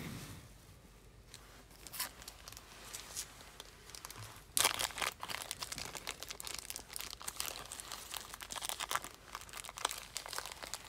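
Crinkly wrapping being handled close by: a few light clicks, then from about halfway a dense, irregular crinkling and rustling.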